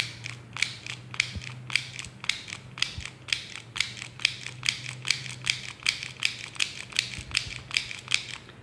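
Hand-held mini sewing machine stitching fabric. It is squeezed fully down and released over and over, giving a sharp mechanical click with each stitch, about three a second.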